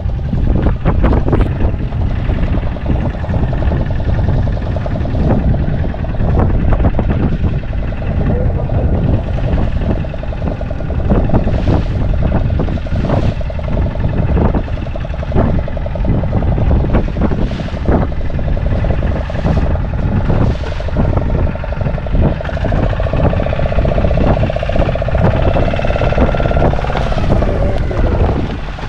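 Wind buffeting the microphone over a boat's engine running steadily with a constant hum. The hum grows stronger near the end and then stops, and there are scattered knocks.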